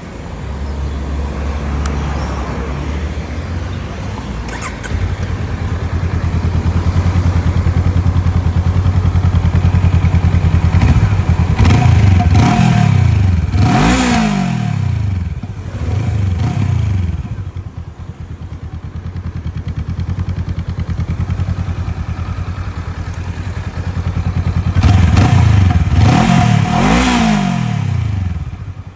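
Honda CL motorcycle engine on its stock exhaust, idling steadily. The throttle is blipped in a few short revs that rise and fall back to idle, a cluster around the middle and another near the end.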